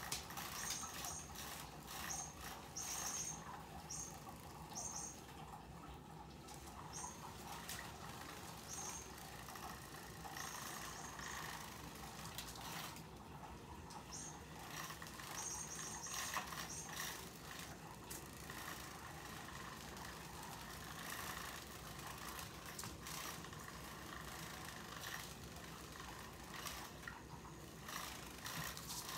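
A plastic cat toy clicking and rattling on a tile floor as it is batted and carried about, with short high chirps coming in clusters now and then.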